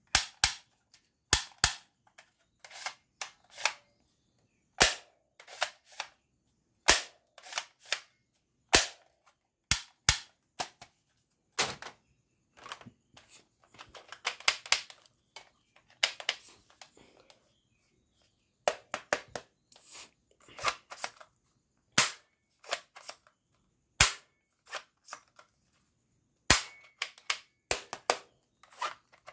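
Plastic toy guns clicking and clacking as they are handled and worked: many sharp, irregular snaps, with bursts of plastic rattling in between.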